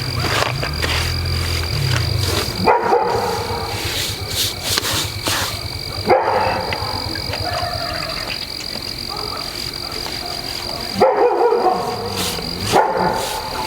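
A dog barking several times.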